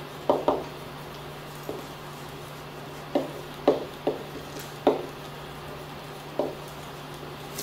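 Felt-tip marker knocking against a whiteboard while words are written: about eight short, irregular taps over a steady low hum.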